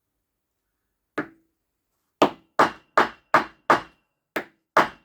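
Hammer blows knocking the axle out of a Honda Miimo HRM3000 robotic mower's wheel motor housing, each blow with a short metallic ring. One strike comes about a second in, then a quick run of seven, about three a second.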